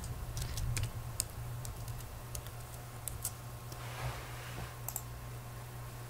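Typing on a computer keyboard: quiet, irregular key clicks, thicker in the first three seconds and sparser after, over a low steady hum.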